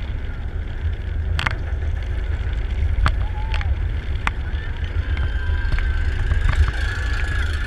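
B&M wing coaster train climbing the chain lift hill: a steady low rumble with a few sharp clicks, the train reaching the crest near the end.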